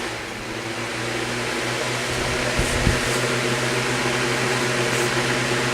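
Holmes Blizzard oscillating fan running on high: a loud rush of wind noise from the blades over a steady motor hum, growing louder over the first couple of seconds as the fan speeds up, then holding steady. A couple of soft low thumps near the middle.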